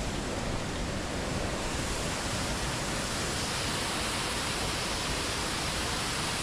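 Steady, unbroken rush of whitewater in a creek canyon.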